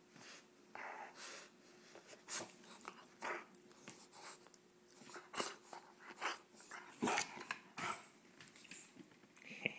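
English bulldog breathing hard in short, irregular bursts, with mouth noises as she play-bites and mouths a cloth sleeve.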